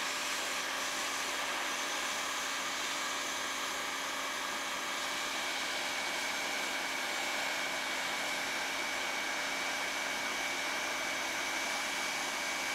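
Hot air plastic welding gun running steadily, its blower pushing hot air through a speed-weld nozzle while HDPE welding rod is fed onto the seam. It makes an even rushing blower noise with a low hum and a faint high whine that becomes clearer about halfway through.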